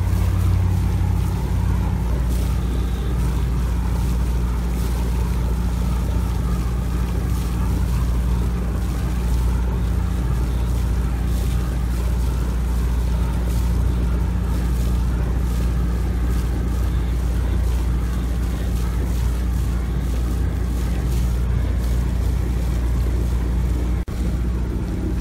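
A boat's engine running steadily under way, a constant low hum, with wind and rushing water over it.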